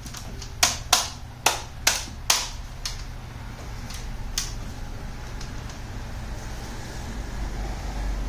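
A run of about eight sharp clicks and knocks of hard parts being handled in the first four and a half seconds, then only a faint steady hum.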